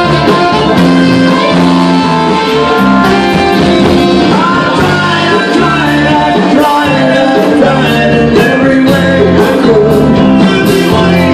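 Live band playing with guitars, bass and drums under a bending lead melody line, recorded from far back in the room.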